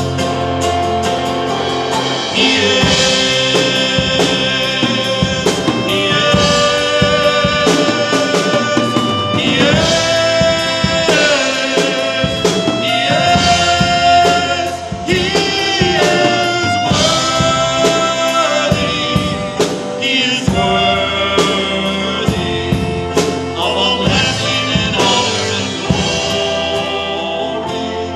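A worship song with singing over a band of guitar and drums.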